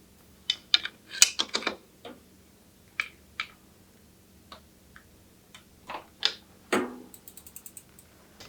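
Bicycle parts and hand tools being handled in a build: a string of sharp metallic clicks and clacks, then near the end a quick run of even ticks, about a dozen a second, like a bicycle freewheel's ratchet.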